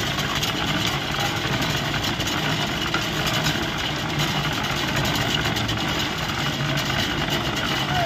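Half-bag concrete mixer driven by a 2 hp electric motor, running steadily, its drum turning with wet concrete inside as it tips the mix out.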